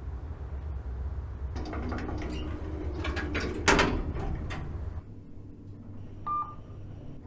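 A steady low rumble with a run of knocks and rattles, ending in a single loud bang near four seconds in. After that the sound drops to a quieter hum, and an Otis elevator gives one short electronic beep as its floor display lights up.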